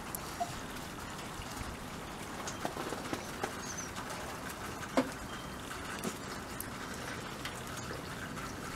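Quiet outdoor ambience of an icy snow-covered yard: faint scattered ticks and crunches, with a sharper click about five seconds in, and a few faint high bird chirps.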